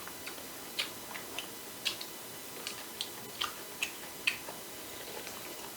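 Small irregular clicks and taps of people eating at a table, about a dozen short sharp ones spread unevenly.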